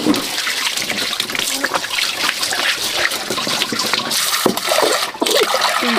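Water running steadily from a pipe and splashing onto a bamboo floor and into a metal pot as rice is rinsed by hand, with small knocks of the pot.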